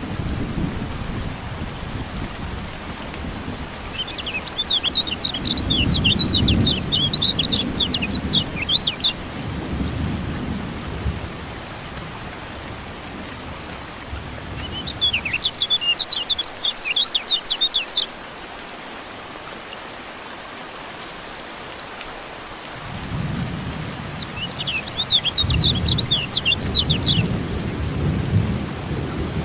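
Steady rain with rolling thunder rumbling and swelling twice. Over it, a kecial kuning white-eye sings three bouts of rapid, high chirping song a few seconds long.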